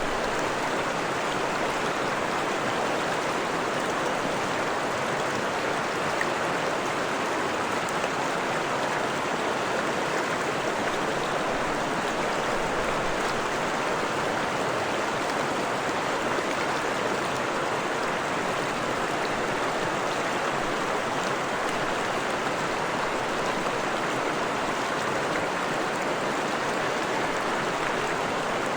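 Freshwater stream flowing steadily over rocks, a constant rushing and splashing of water.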